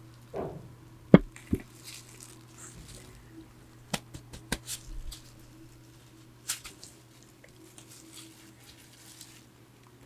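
Sharp knocks and clinks of glassware and dishes being handled and set down on a table, the loudest about a second in, with soft rustling of plastic and rubber gloves. A steady low electric-fan hum runs underneath.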